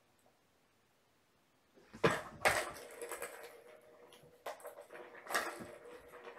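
Kittens batting a plastic ball-track cat toy: sharp clattering knocks and rattles in two bursts, about two seconds in and again around five seconds.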